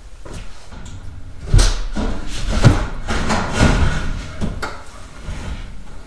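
Freestanding electric range being pushed back into its gap to sit flush with the countertop: a series of scrapes and knocks, about once a second, as the metal cabinet slides and bumps into place.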